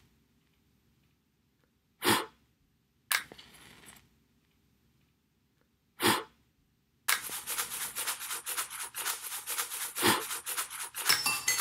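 Three short, separate puffs of sound, about two, three and six seconds in. From about seven seconds, a dense, rapid rattling of many small hard pieces, like dry macaroni shells shaken or poured in a plastic container.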